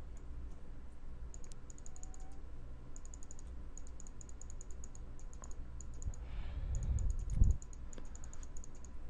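Light clicking at a computer comes in quick, evenly spaced runs with short gaps between them. A dull low bump comes about seven and a half seconds in.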